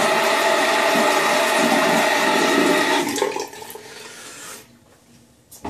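Water running from a tap into a sink while the face is rinsed with cold water, shut off about three seconds in and dying away; a short knock near the end.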